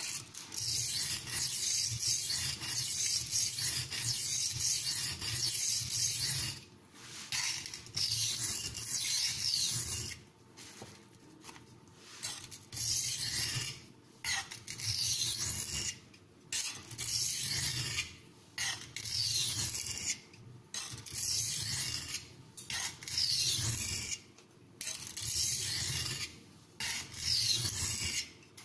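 Carbon-steel knife blade being stroked across an oiled Norton India oilstone: a gritty rasping scrape in runs of strokes, broken by short pauses about every two seconds.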